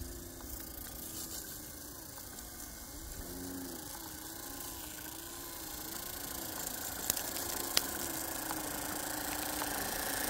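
G-scale garden railway train with track-cleaning wagons running on the rails: a small electric motor hum that wavers up and down in pitch, growing louder toward the end, with two sharp clicks about seven and eight seconds in.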